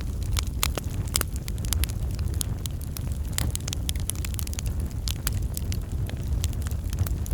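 Wood fire in a fireplace crackling: many irregular sharp pops and snaps over a low steady rumble of the flames.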